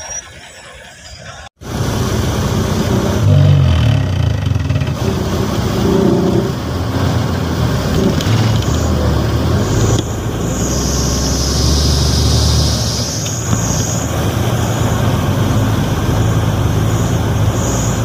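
A heavy vehicle's diesel engine running with a steady low drone, mixed with outdoor wind and road noise. It starts abruptly about a second and a half in, after a quieter stretch.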